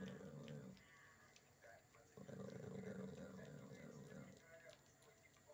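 Yorkshire terrier growling low: a growl that ends about half a second in, then a second, longer growl of about two seconds starting about two seconds in, with faint clicks between them.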